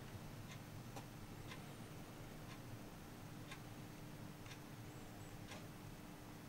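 Faint, regular ticking, about two ticks a second, over a low steady hum.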